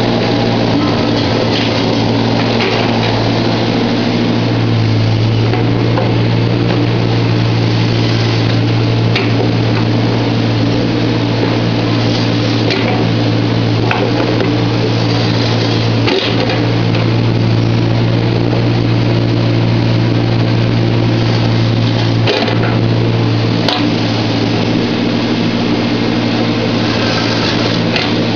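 Volvo EC15 mini excavator's diesel engine running steadily under work, with a few sharp knocks partway through.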